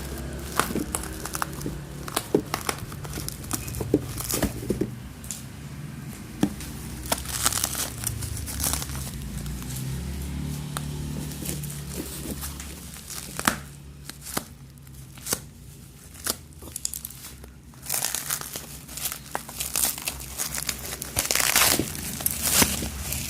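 Packaging being crumpled and torn open by hand, a run of rustles, crackles and sharp clicks, easing off in the middle and loudest near the end.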